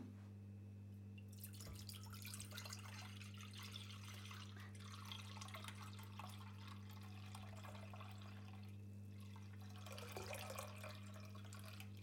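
Milk pouring from a carton into a stainless steel pot, a faint steady stream splashing into the milk already there, starting about a second in. Near the end the stream thins as the carton empties. A steady low hum runs underneath.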